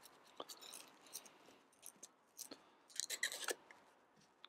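Faint rattling ticks of a spice shaker being shaken over a measuring jug, with a short cluster of sharper clicks about three seconds in.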